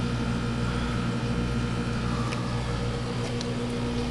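Steady mechanical hum of running aquarium equipment, with a few faint clicks.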